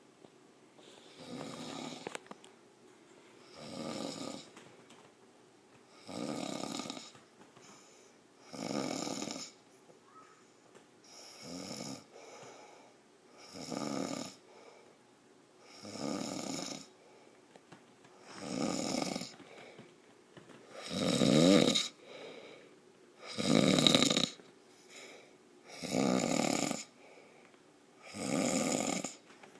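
A man snoring loudly in his sleep with his mouth open, a snore on each breath about every two and a half seconds, about a dozen in all. The snores grow louder about two thirds of the way through.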